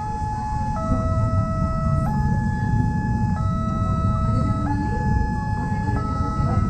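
Railway level-crossing warning siren sounding a steady two-tone alternation, the high and low notes switching about every 1.3 seconds, warning of an approaching train as the boom barrier comes down. Road traffic noise rumbles underneath.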